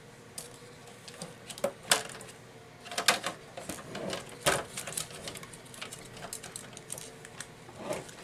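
Irregular plastic clicks, taps and light rattles from handling the printer's housing and the screen cable as it is worked free of its tabs, over a faint steady hum.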